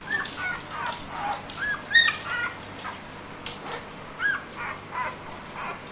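A month-old puppy squeaking and whimpering in short, high cries that rise and fall, over and over, loudest about two seconds in.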